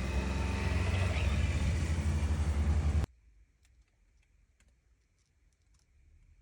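Honda Civic Type R engine running steadily with road noise while driving. It cuts off abruptly about three seconds in, leaving faint scattered ticks.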